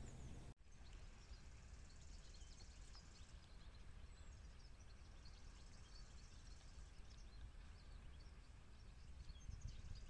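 Faint outdoor ambience: a low rumble with many scattered faint high chirps. The sound drops out briefly about half a second in, and the low rumble grows a little near the end.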